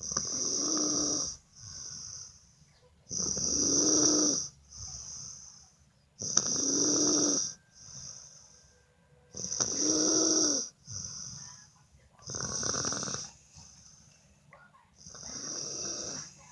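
A sleeping person snoring: six loud snores about three seconds apart, each followed by a shorter, softer breath sound. The last two snores are weaker.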